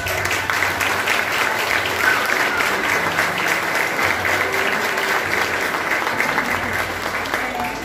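Audience applauding: many hands clapping in a dense, even patter that starts as the music stops and begins to taper off near the end.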